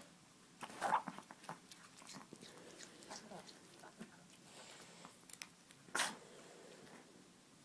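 Chihuahua chewing and biting pomegranate: scattered short wet smacks and clicks, the loudest about a second in and just after six seconds.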